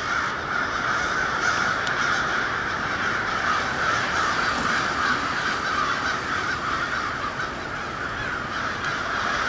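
A huge flock of American crows cawing overhead, a steady dense din of overlapping calls with no break.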